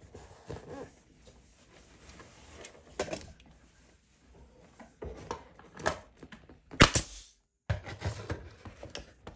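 A pneumatic finish nailer firing once about seven seconds in: a single loud, sharp crack. Before and after it, light knocks and clicks of handling the nailer and the crown molding against the wall.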